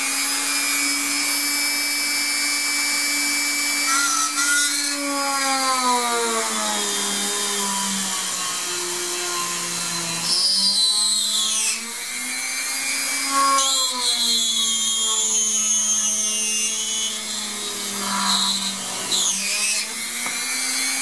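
Small electric drill press running, its bit drilling through a finished (cured) polymer clay bead from top to bottom. The motor's steady whine sinks in pitch several times as the bit bites into the clay, then climbs back.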